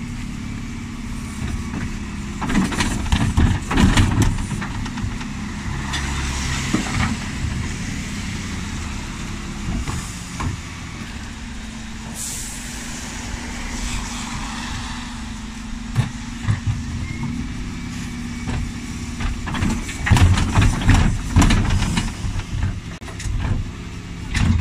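Dennis Elite 6 refuse lorry's diesel engine running with a steady hum while the Terberg bin lift works. Wheelie bins bang and clatter as they are lifted and tipped, in a burst a few seconds in and again near the end. There is a sharp air-brake hiss about halfway through.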